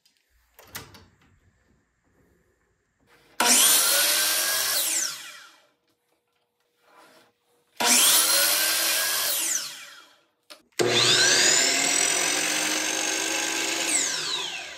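Electric miter saw run three times to trim small pieces of wood, each run spinning up with a rising whine, cutting, and winding down with a falling whine when the trigger is released; the third run, near the end, is the longest.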